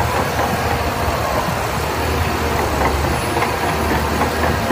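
Shantui crawler bulldozer's diesel engine running steadily under load, with a low hum and the rattle of its steel tracks as it pushes wet sand.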